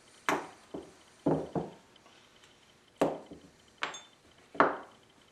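Hammer tapping an aluminum roofing nail used as a soft drift to drive a delicate mandrel out of a small drill chuck. There are about seven sharp knocks, irregularly spaced, each with a short ring.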